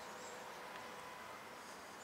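Quiet background: a steady low hiss with faint, high insect buzzing.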